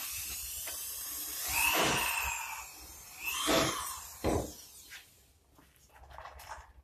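Cordless drill-driver running in two bursts, driving screws into an MDF cabinet: a longer run whose pitch rises then sags, then a shorter one that spins up and winds down. A single knock follows a little after four seconds in.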